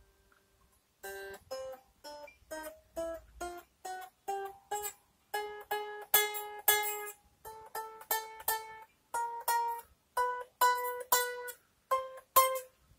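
The G string of a Squier Stratocaster electric guitar plucked one note at a time while it is fretted further up the neck, about two dozen short notes climbing in pitch. He is testing for fret buzz while lowering the string height, and on this string he gets some buzz, which means the saddle needs raising a little.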